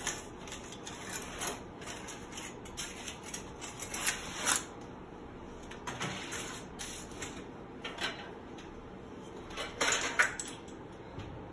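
A foil-lined baking tray handled with oven mitts: scattered light rustles of aluminium foil and small clicks and clinks of the pan, with a louder clank near the end.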